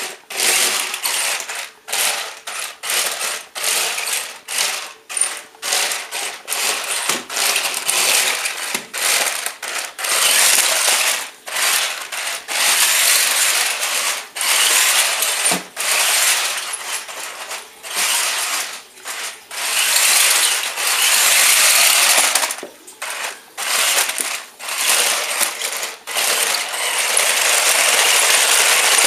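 Tyco Monster Traxx RC toy's electric drive motors and gearboxes whirring, with its treads clattering, in short bursts that start and stop sharply as the throttle is worked on high speed with a fully charged battery. In the last couple of seconds it runs without a break as the toy spins in place.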